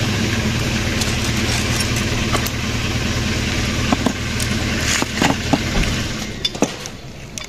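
A motor or engine running steadily with a low hum, fading out about six seconds in, with a few light clicks and knocks over it.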